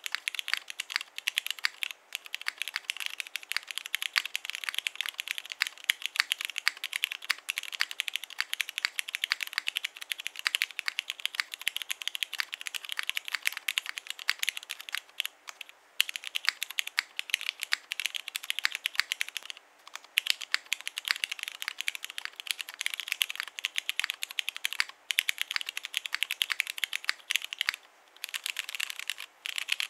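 Fast, continuous typing on a mechanical keyboard with lubed and filmed Cherry MX Ultraglide Black linear switches, an aluminium plate and PBT keycaps: a dense run of keystrokes with a few short pauses.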